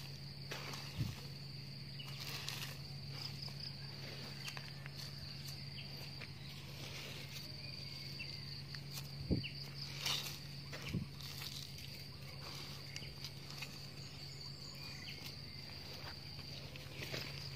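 An insect's steady high-pitched trill over a steady low hum, with a few brief knocks and rustles from soil being handled, the loudest about nine to ten seconds in.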